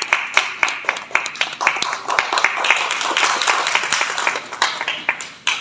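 A group of people clapping: many quick, sharp hand claps blending into applause, thinning out and stopping near the end.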